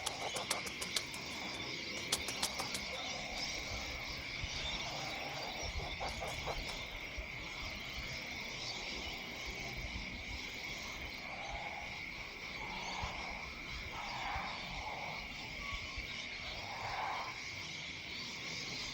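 Evening chorus of insects and frogs: a steady high-pitched insect trill, with frogs croaking in short repeated calls from about halfway through. A few sharp clicks in the first few seconds.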